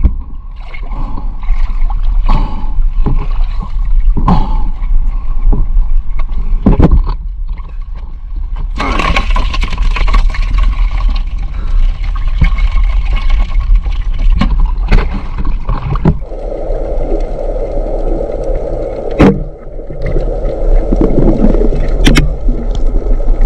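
Water sloshing and gurgling, with scattered sharp knocks and scrapes over a steady low rumble; the sloshing grows thicker about two-thirds of the way in.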